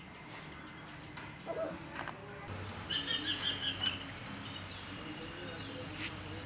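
A bird calling in a quick run of high chirps about three seconds in, over a low steady background hum.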